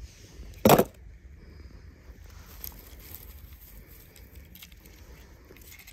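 A single sharp clack under a second in, followed by faint scattered clicks and light clinks of small hard objects, over a low steady hum.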